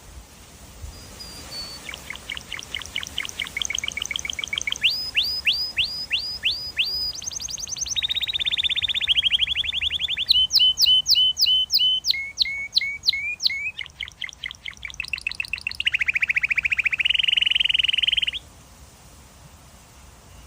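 Domestic canary singing one long song of rapid trills, each a fast run of the same note repeated, switching from one trill to the next. The song stops abruptly near the end.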